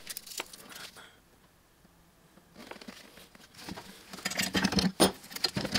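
Sheet metal clamped along a bench edge being bent over by hand: a few light clicks, a short quiet spell, then a run of sharp clicks and knocks from the flexing metal and clamps that grows busier toward the end.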